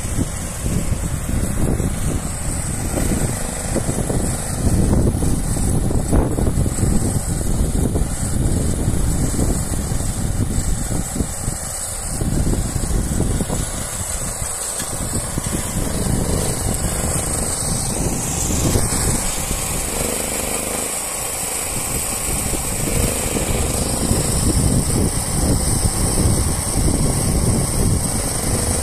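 Small portable petrol generator running steadily to power the welding, with wind rumbling on the microphone.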